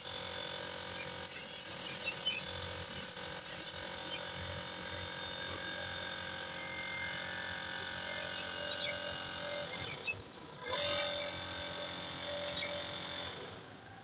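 Compressed air hissing from an air hose at a tractor tyre in three short bursts in the first few seconds, over a steady mechanical hum that dips briefly about ten seconds in.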